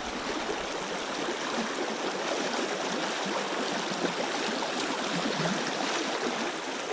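Small rocky brook running fast over stones in a shallow riffle: a steady rush of water.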